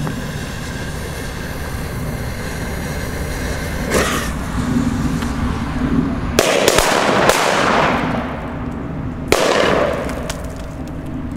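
A pack of Funke C firecrackers going off inside a metal cooking pot: a single bang about four seconds in, a quick cluster of bangs a couple of seconds later, then one more bang with a short ring.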